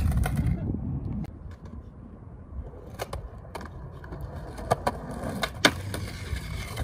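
Skateboard wheels rolling on concrete, fading out about a second in, then a series of sharp board clacks with rolling coming back, the loudest clack a little before the end as the board lands on a concrete ledge.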